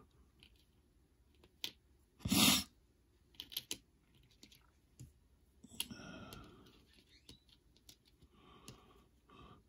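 Scattered light clicks and taps of cardboard wargame counters being handled on a game map, with one louder short rustle a little over two seconds in.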